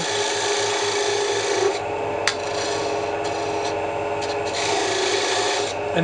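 Wood lathe running while a hand-held turning tool cuts a tenon into a spinning myrtlewood blank: a steady scraping hiss of the cut over the motor's hum, easing off briefly a few times. A single sharp click a little after two seconds in.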